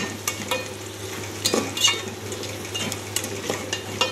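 Spoon stirring and scraping chicken, onions and green chillies frying in a metal pot: a sizzle with irregular clinks and scrapes of the spoon against the pot.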